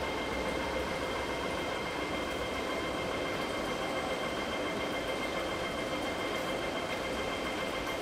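Steady background noise of an underground metro station platform behind platform screen doors: an even hiss with a constant high-pitched whine on top.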